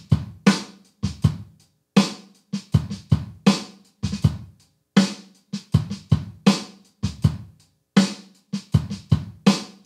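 Programmed MIDI drum groove on Logic Pro X's Brooklyn drum kit at 80 BPM: kick, hi-hat and a snare backbeat landing every second beat, with quiet snare ghost notes in between. The kick is pushed 30 ticks behind the beat, which lays the groove far back in the pocket and makes it sound fat.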